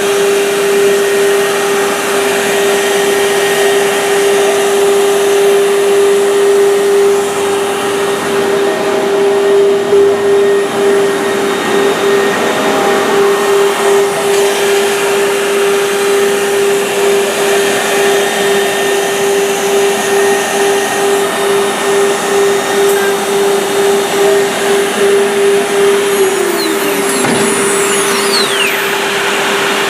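Woodworking machine running: a high-speed motor gives a steady whine over a continuous noisy hum. Near the end a tone glides down in pitch.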